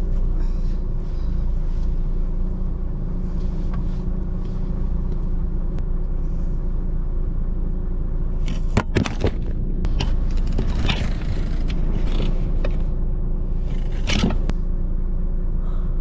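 Steady low engine rumble with a faint steady hum over it, and a few short knocks and rustles about nine seconds in and again near fourteen seconds.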